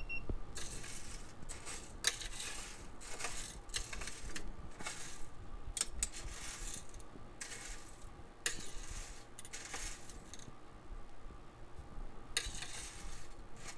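A metal spoon stirring freshly roasted coffee beans in a metal tray: the beans clatter and rattle against the metal in repeated, uneven bursts.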